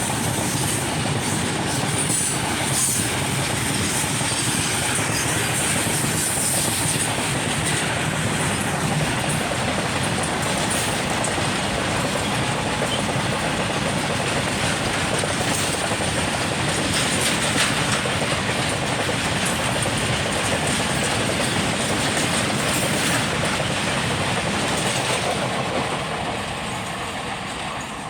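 Freight train wagons rolling past: a steady rush of steel wheels on rail with clattering over the rail joints and a thin high whine. The sound fades away near the end as the train draws off.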